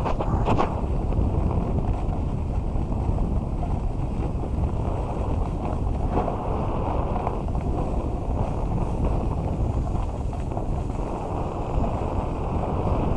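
Wind rushing over the microphone together with the steady scrape of a snowboard riding down a groomed slope. There is a short knock about half a second in.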